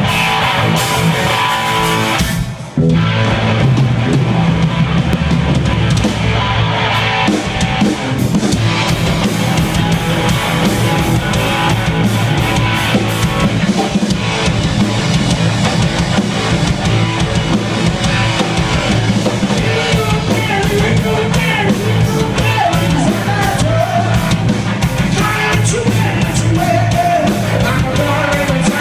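Live rock band playing: electric guitars, bass and drum kit, with a short break about two and a half seconds in. A man's singing comes in about two-thirds of the way through.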